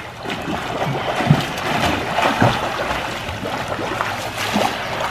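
Two children swimming front crawl in a pool: steady splashing from their kicks and arm strokes.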